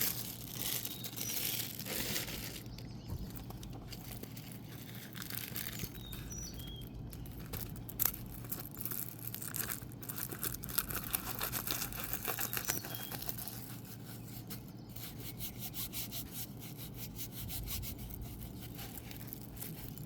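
A diamond painting kit being handled and unrolled: rustling and crinkling of its plastic film and canvas, with many small scrapes and taps.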